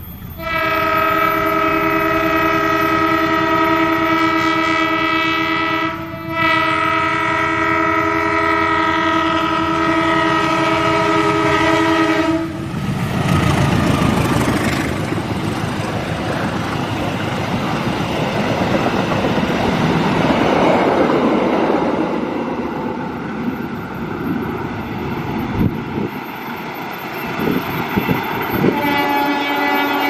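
KAI diesel-electric locomotive's air horn sounding the long 'Semboyan 35' signal as it approaches: a chord of several tones held for about six seconds, a brief break, then another six-second blast. The locomotive and passenger coaches then pass close by with a loud, steady clatter of wheels on the rails, and a new horn blast starts near the end.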